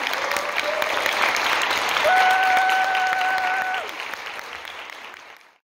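Audience applauding with scattered vocal whoops, one held as a long steady high note about two seconds in; the clapping thins out and the sound cuts off abruptly near the end.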